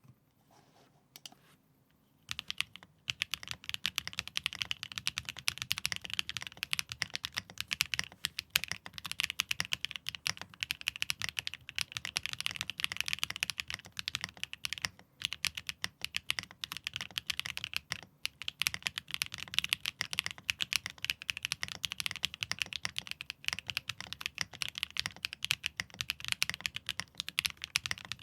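Neo Ergo mechanical keyboard with Xinhai switches, a carbon-fibre plate, plate foam and PBT keycaps, typed on fast and continuously, starting about two seconds in with a few short pauses along the way.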